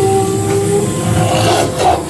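Ghost train ride car running along its track, a steady rumble under several steady whining tones, with a short burst of noise near the end.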